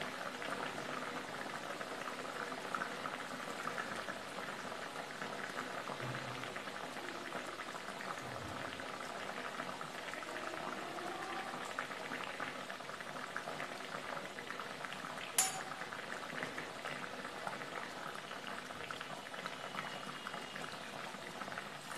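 Hot oil in a kadhai sizzling and bubbling steadily as breadcrumb-coated bread kachoris deep-fry. A single sharp click sounds about fifteen seconds in.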